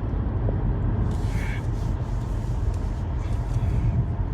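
Steady low vehicle rumble, with a brief faint hiss about a second in.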